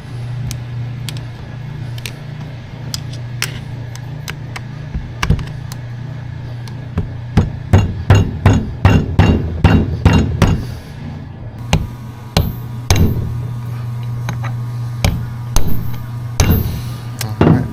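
Hammer tapping on steel, bending the ear of a lock washer down on an '82 Harley-Davidson Ironhead Sportster four-speed transmission. A few scattered taps, then a quick run of about three to four taps a second, then slower taps with a short metallic ring, over a steady low hum.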